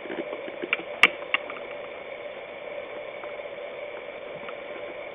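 Steady electrical-sounding hum with a few light clicks or taps bunched about a second in, the loudest one sharp and brief.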